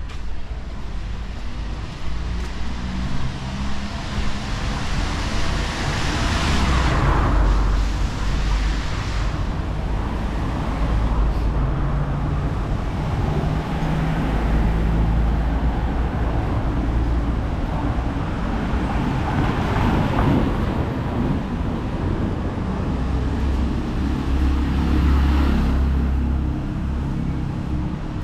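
City street traffic: a steady low rumble of engines, with vehicles passing close by about a quarter of the way in, again past the middle, and once more near the end.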